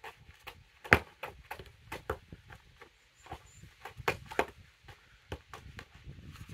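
A football being juggled in quick, uneven touches off the feet and legs, mixed with trainer footsteps and scuffs on paving slabs. The sharpest touch comes about a second in.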